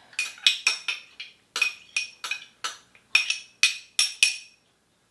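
Spoon clinking against a small glass bowl, tapping garlic out into a slow cooker: a run of about fifteen sharp, ringing clinks, roughly three a second, that stops shortly before the end.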